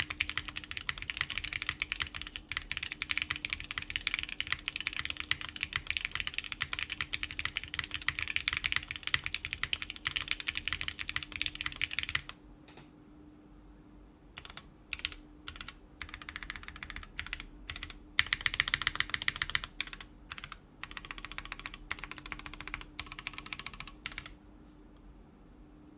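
Fast typing on a top-mounted Plywrks Spyder TKL mechanical keyboard with factory-lubed Gateron Khonsu switches, GMK keycaps and a polypropylene plate. The typing is steady at first; about halfway through it breaks into short bursts with pauses, and it stops near the end.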